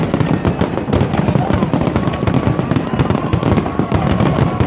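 Fireworks display going off in a dense, continuous run of bangs and crackles, many per second, over a low rumble, with crowd voices underneath.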